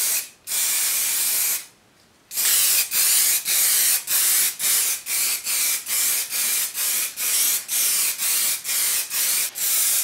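Aerosol spray can of grey filler primer hissing. After a couple of longer sprays and a short pause, it goes in quick short bursts, about three a second.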